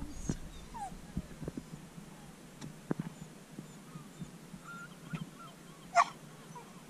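Dog whining in a few faint, short, wavering calls, with a sharper yelp about six seconds in, over scattered light knocks.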